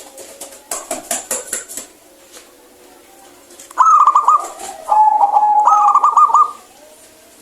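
Zebra dove (perkutut) singing its rolling, trilled coo in a few linked phrases for nearly three seconds, starting a little under four seconds in. About a second in, a short run of rapid clicks comes before it.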